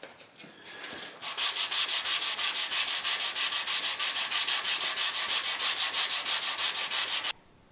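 Hand sanding a thinline Telecaster guitar body with a sanding block: fast, even back-and-forth strokes, about six or seven a second, sanding back grain filler. It starts about a second in and stops abruptly near the end.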